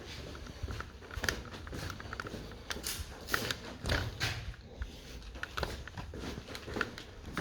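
Footsteps walking at an uneven pace, with scattered crunches, knocks and rustles of handling noise.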